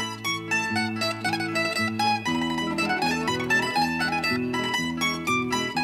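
Background music played by a rondalla, a Spanish plucked-string ensemble: a quick, bright plucked melody over plucked chords, growing fuller with a deeper bass line about two seconds in.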